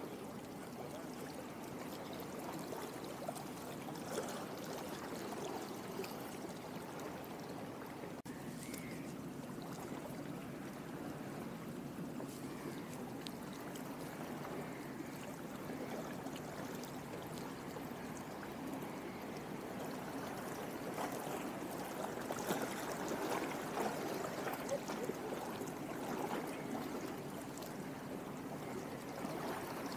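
Seawater lapping and trickling in a steady wash, growing somewhat louder after about twenty seconds.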